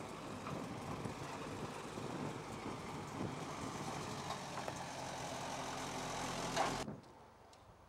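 Small narrow-gauge locomotive's diesel engine running steadily as the train moves through the station. The sound stops abruptly about seven seconds in.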